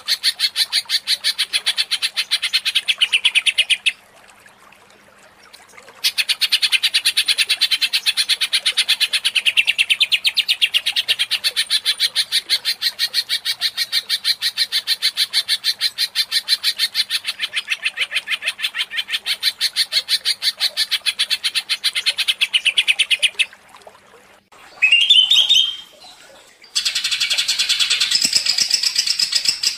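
Cucak ijo (green leafbird) song in long runs of rapid, evenly repeated chattering notes, the agitated 'ngentrok' style used to provoke a caged leafbird into singing. It breaks off briefly about four seconds in, and near the end a short rising note comes before the rapid run starts again.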